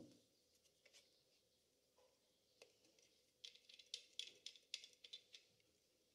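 Faint metal clicks and scraping from an old military folding shovel's hinge and locking collar as its blade is folded against the handle, with a quick run of sharp clicks about three and a half seconds in.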